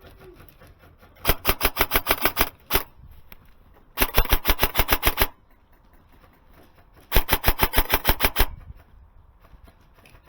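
Airsoft gun fired in semi-auto with rapid trigger pulls: three strings of about a dozen quick shots each, roughly nine or ten a second, with a single shot just after the first string.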